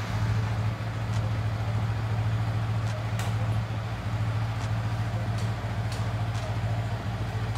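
Yamaha R15 V3's 155 cc single-cylinder four-stroke engine idling steadily, with a few faint ticks over the steady hum.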